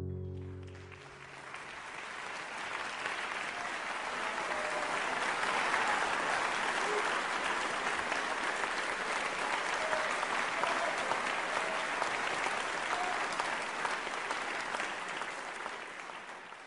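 Audience applause after a song: the last sung note dies away in the first second, then clapping swells, holds steady, and fades out near the end.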